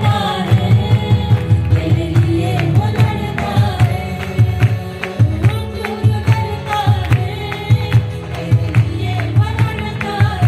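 A choir singing a worship song over instrumental accompaniment with a steady, driving drum beat.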